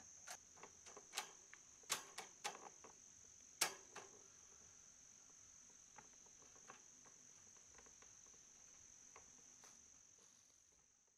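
Faint, steady high-pitched insect chirring, with a scatter of sharp clicks and knocks over the first few seconds from hands working the fan's head and wire grille; the sound fades out near the end.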